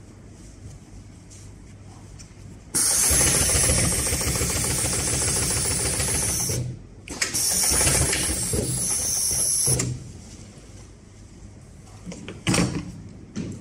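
Extra-long-arm walking-foot industrial sewing machine stitching heavy upholstery fabric in two runs of a few seconds each. Each run starts and stops abruptly as a fast rattle of needle strokes under a strong hiss. A couple of sharp knocks come near the end.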